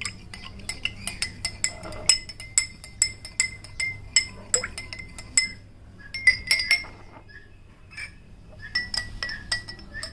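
Spoon stirring a drink in a glass, clinking quickly and repeatedly against the sides, with a short break about seven seconds in.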